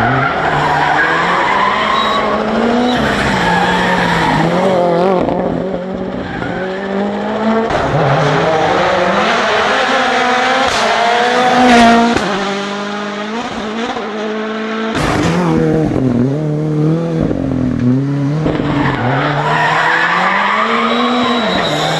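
Rally cars' turbocharged engines revving hard, one car after another, the pitch climbing and dropping repeatedly through gear changes and lifts for the corners.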